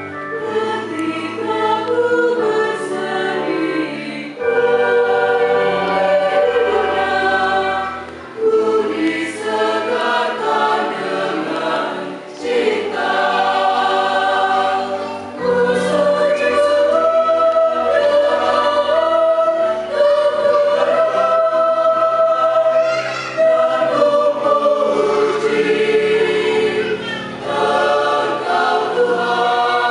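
Mixed choir of women and men singing a communion hymn in parts, phrase after phrase with short breaths between.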